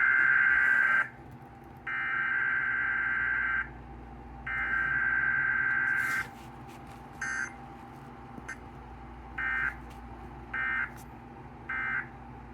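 Emergency Alert System SAME digital data tones: three long bursts of shrill warbling data, each just under two seconds, with about a second between them. Then five short blips, the last three about a second apart, like the end-of-message bursts. Under them runs a steady faint hum and hiss from the broadcast.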